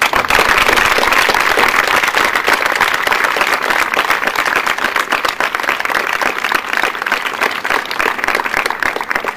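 Crowd applauding, starting suddenly and easing off slightly near the end.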